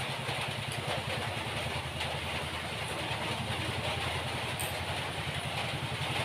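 A small engine idling steadily, a low, rapid throb.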